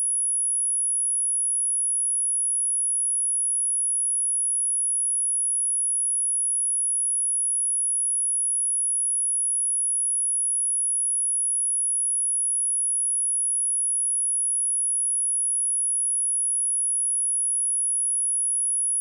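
A pure sine-wave test tone at 10291 Hz: one steady, very high-pitched whistle held at constant pitch and level.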